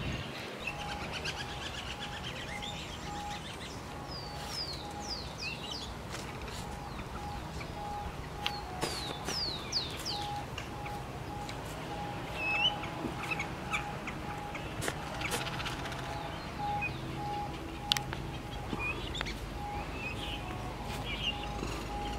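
Outdoor bird calls: scattered short chirps and several quick series of falling chirps, over a regular, faint pulsing tone and low background rumble.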